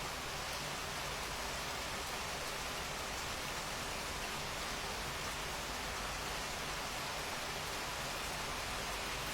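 Steady rain falling, an even hiss of countless drops with no changes or separate sounds.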